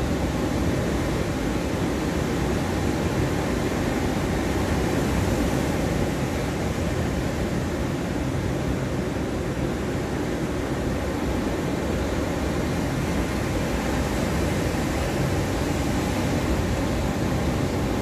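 Ocean surf breaking on a sandy beach, a steady rushing noise of many waves at once with no single wave standing out.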